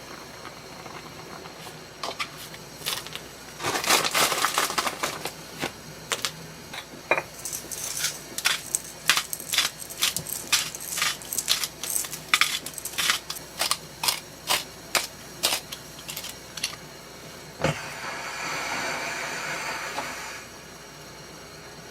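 Kitchen utensils tapping and clinking: a run of sharp taps, about two or three a second through the middle, with brief noisy scraping or rustling bursts before and after.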